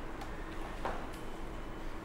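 Quiet room tone: a steady low hum with a few faint clicks and knocks.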